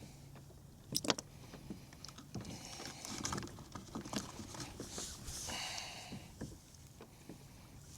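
Faint handling noises while a deeply swallowed hook is worked out of a speckled trout's throat: scattered clicks and taps, the sharpest about a second in, with rustling in the middle seconds.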